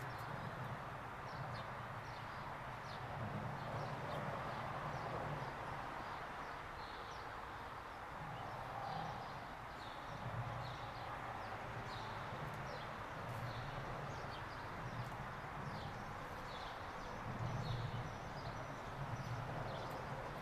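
Outdoor ambience: small birds chirping in short, repeated notes over a steady low hum and background noise.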